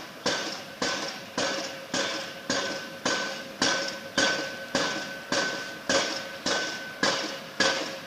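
Pile driver hammering a pile into the ground: regular, evenly spaced blows a little under two a second, each with a ringing note that fades before the next.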